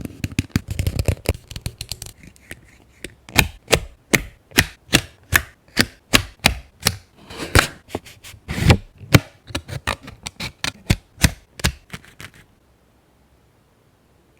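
Hands working paper for a scrapbook journal page: rustling and handling, then a run of sharp clicks about two or three a second, stopping abruptly about twelve seconds in.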